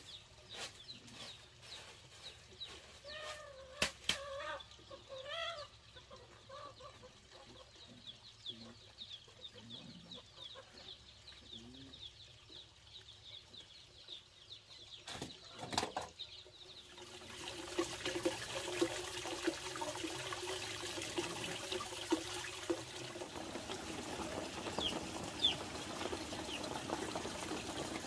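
Chickens clucking over the scratching of a bundle broom sweeping a dirt yard; about seventeen seconds in, a steady watery rushing takes over and grows louder.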